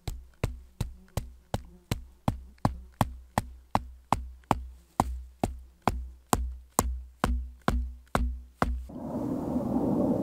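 Electronic drum beat, a steady kick-and-click pattern of about three beats a second with a deep bass thud under each, which stops abruptly about nine seconds in, when a steady outdoor rumble takes over.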